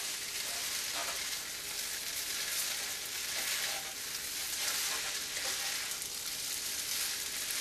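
Rotini pasta with bacon and egg sizzling steadily in a hot nonstick frying pan as it is stirred with a spatula.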